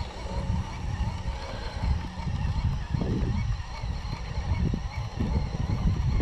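Wind buffeting the microphone in gusts, with a faint steady wavering whine running above it.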